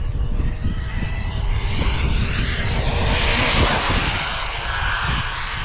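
Arrma Typhon RC buggy speeding past: a rushing whine that builds to its loudest about three and a half seconds in and then fades, over steady wind noise on the microphone.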